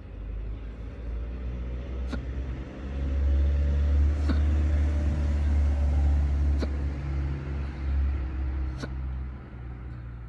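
A person hiccupping four times, about two seconds apart, each hiccup a short sharp click, over a steady low rumble that swells louder through the middle.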